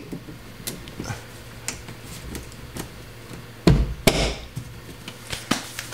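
Hands working an electric power-liftgate strut on its mounts in a Tesla Model 3 trunk: a few light clicks, then two louder knocks about three and a half seconds in as the strut is pushed and locked into place.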